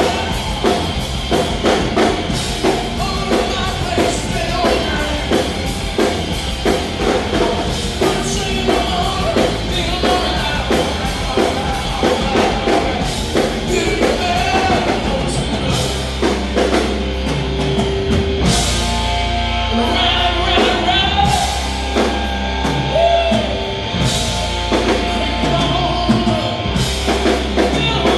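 Rock band playing live, with drums and singing. About two-thirds of the way through, the driving beat thins out and long held notes come in.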